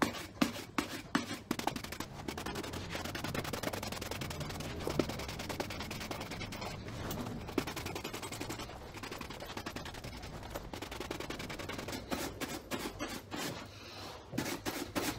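Bristle shoe brush buffing a leather riding boot in fast back-and-forth strokes, shining off dried renovating polish. The strokes are distinct at first, run together into a continuous rapid scrubbing, then come apart again near the end.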